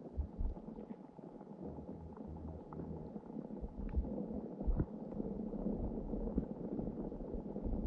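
Muffled underwater ambience heard through a submerged action camera: a steady low rumble of water with irregular soft knocks and a few faint clicks scattered through it.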